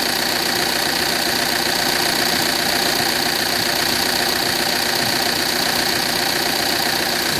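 Audi A6 2.0 TDIe four-cylinder common-rail diesel idling steadily with a distinct metallic knock, which the owner locates at the common-rail fuel rail, over a steady high-pitched ring.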